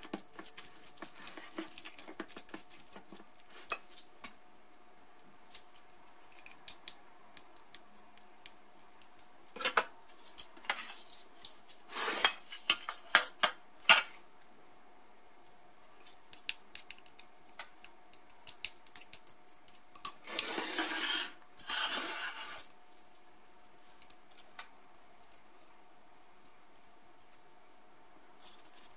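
A spoon stirring and scooping a thick coconut macaroon mixture in a ceramic bowl, clinking and scraping against the bowl in scattered bursts. A longer rustling scrape comes about twenty seconds in, over a faint steady hum.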